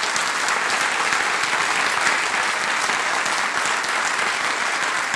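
Audience applauding steadily at the end of a lecture: many hands clapping at once.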